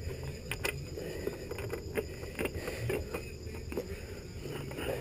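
Scattered light metal clicks and taps as a motorcycle front sprocket is handled and slid onto its splined output shaft.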